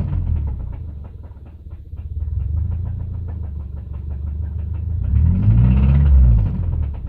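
2005 Subaru EJ253 naturally aspirated 2.5-litre flat-four engine running with a rapid, regular knock that keeps time with the engine; it is blipped once about five seconds in, the pitch rising and falling back. The knock is a horrible rod knock, the sign of a failing connecting-rod bearing.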